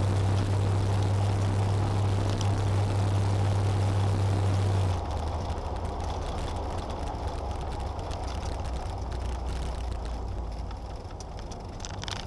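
A car's engine and tyre noise heard from inside the cabin: a steady low drone that drops quieter and duller about five seconds in.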